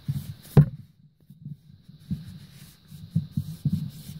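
A towel with cornstarch scrubbing the metal clutch of a Whirlpool direct-drive washer transmission, wiping grease off the clutch: irregular low rubbing thumps, with one sharp knock about half a second in.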